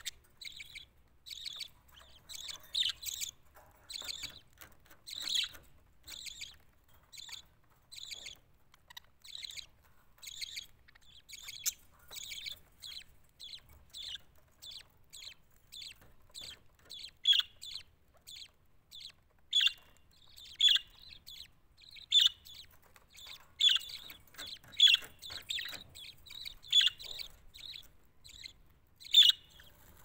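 Budgerigars chirping: a steady run of short, high chirps, about two to three a second, with some louder calls in the second half.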